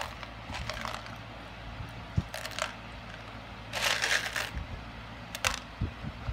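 Small craft beads clicking and rattling: light clicks as beads are picked up and set down, and a longer rattle about four seconds in as the jar of beads is handled.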